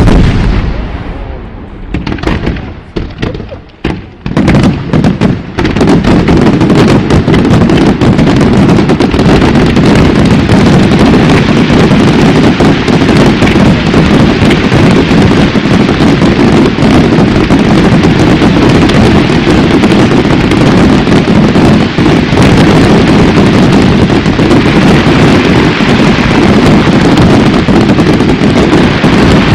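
Aerial fireworks going off: a handful of separate loud bursts, then from about five seconds in a dense, continuous barrage of explosions with no gaps between them.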